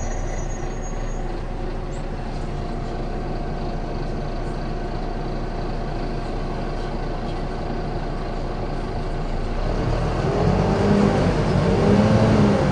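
Volvo B9TL double-decker bus's engine heard from inside the bus, running at a steady drone, then from about ten seconds in growing louder with the pitch rising and falling as the bus pulls away and accelerates.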